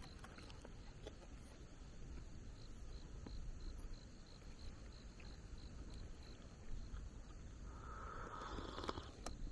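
An insect chirping steadily outdoors, short high chirps evenly spaced. A brief rustle and a sharp click come near the end.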